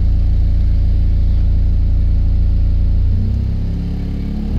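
2010 Hyundai Santa Fe's 2.2-litre four-cylinder common-rail turbodiesel idling steadily during an engine test. Its note shifts and eases slightly about three seconds in.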